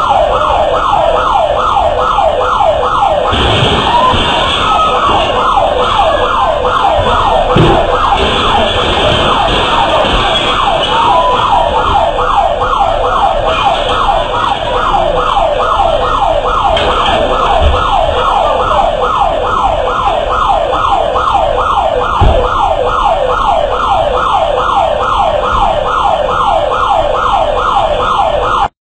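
Electronic alarm siren wailing in rapid falling sweeps, about three a second, unbroken and loud.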